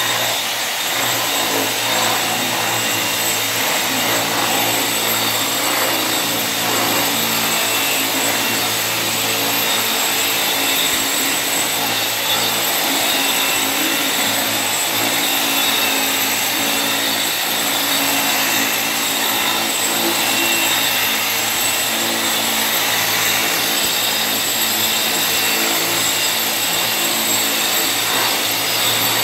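Electric angle grinder fitted with a polishing pad running steadily, its abrasive disc working along the edge of a granite countertop, with a constant high whine over the motor hum.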